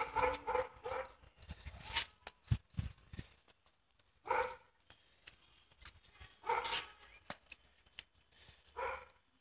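A dog barking, short barks about every two seconds, over a faint steady high-pitched tone.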